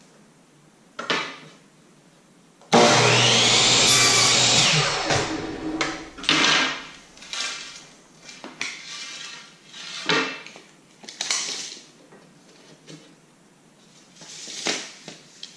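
DeWalt compound miter saw starting up sharply and running for about two seconds, cutting through a thin strip of wooden trim, then spinning down. After it, scattered light knocks and clatters as the wood pieces are handled.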